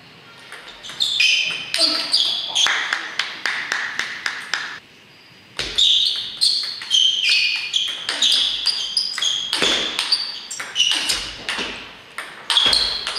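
Table tennis rallies: the ball clicking off the bats and pinging off the tabletop in quick succession. There is a short pause of under a second near the middle before play resumes.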